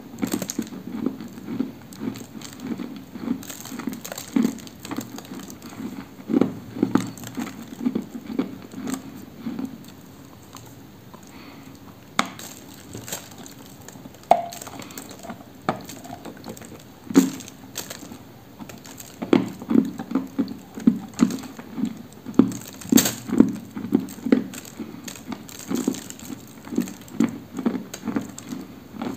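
Biting and chewing a lump of dry edible apricot clay: a steady run of crunching and crumbling, with a few sharp snaps as pieces break off.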